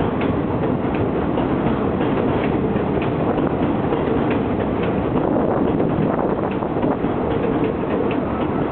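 R62A subway train moving along the elevated station platform, a steady rumble of wheels on rail with light irregular wheel clicks.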